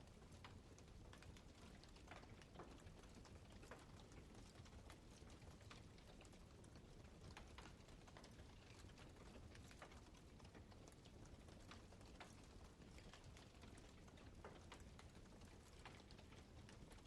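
Campfire crackling faintly: irregular sharp pops and snaps of burning wood over a low, steady hiss.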